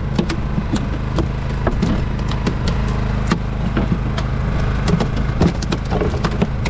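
Fishing boat's engine running steadily, with frequent short knocks and clicks over it.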